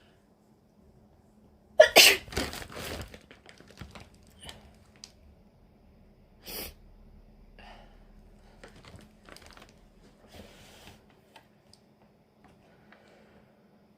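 A woman sneezes loudly once, about two seconds in, a sudden outburst that trails off over about a second. A short sharp sound follows a few seconds later, then faint clicks and rustles. The uploader puts the sneezing down to a dust allergy or a lingering cold.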